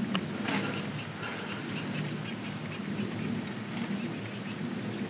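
Small birds chirping faintly now and then over a steady low hum and a faint high steady tone.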